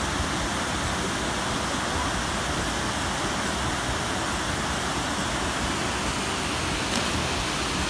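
Steady rush of river water pouring over a concrete weir.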